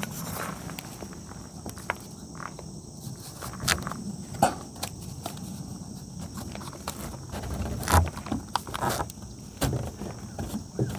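Scattered knocks, taps and scuffs of hands-on work fitting a door and its shims into the opening, the two loudest knocks about four and a half and eight seconds in, over a steady high hiss.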